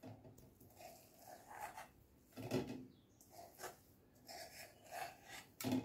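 A metal spoon scraping cooked upma out of a frying pan into a steel pot: soft, irregular scrapes, with a sharper metal knock near the end.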